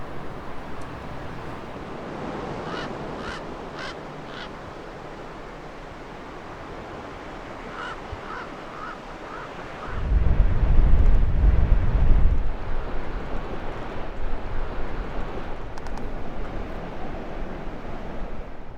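Water and wind noise, with two short runs of small high chirps, one about three seconds in and another near eight seconds. About ten seconds in, loud low wind buffeting on the microphone takes over.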